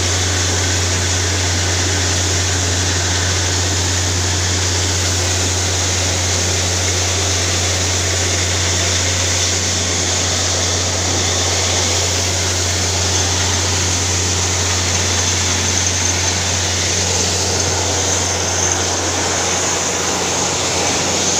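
Borewell drilling rig running steadily as it drills, a constant low engine hum under a loud even hiss of water and rock slurry being blown up out of the bore.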